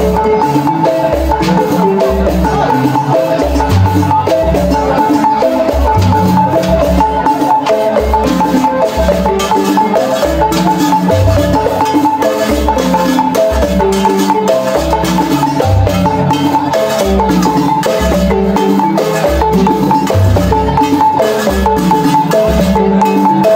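Senufo balafon, a wooden-keyed xylophone with gourd resonators, played fast with mallets: a dense, rhythmic melody of struck notes over a steady, repeating low bass pulse.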